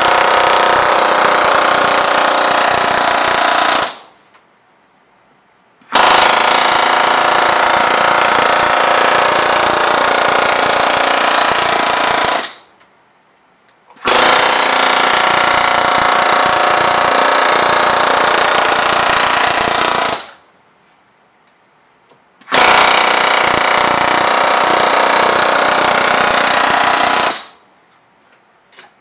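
Pneumatic hammer rapidly hammering the edge flange of a 0.025-inch aluminium wing rib over a wooden form block (flow forming). It runs in four long runs of several seconds each, with pauses of about two seconds between them.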